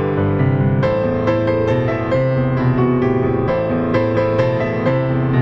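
Background music: a soft piano playing slow, sustained chords, with new notes struck about every half second.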